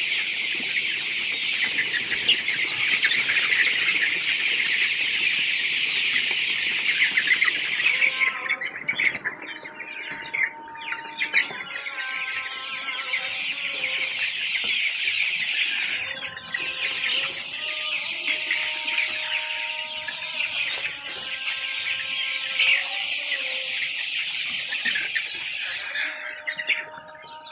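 A big flock of Golden Misri chicks peeping and chirping all at once in a dense, constant high-pitched chatter. About eight seconds in the chatter thins, and a steady pitched hum comes and goes beneath it.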